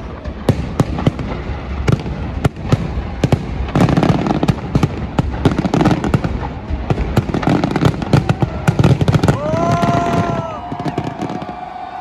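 Fireworks display going off overhead: a rapid barrage of sharp bangs and crackles that thickens to a dense, loud salvo midway, then thins out. Near the end a brief held tone rises over the bangs.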